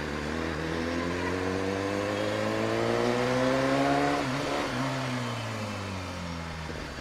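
BMW S1000RR's inline-four engine revving up steadily for about three and a half seconds as the bike accelerates, then the revs fall away gradually as it slows down.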